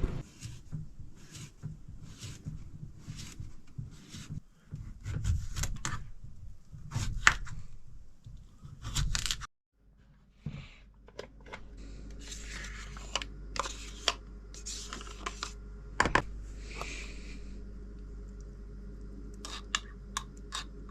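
Scattered light clicks, knocks and rustles of things being handled. The sound cuts out briefly, then a steady low hum sits under further clicks and a few short rustles.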